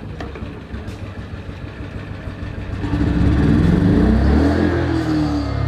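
TDR TI 2000 inverter generator being pull-started with the choke on: a low rumble while the recoil cord is pulled, then the engine catches about three seconds in and runs loud, its pitch wavering briefly before it settles.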